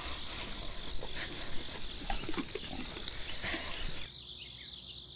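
Handful of cut grass rustling and crackling as it is lifted out of a toy trailer and set down. About four seconds in the sound cuts abruptly to a quieter background with insects chirping.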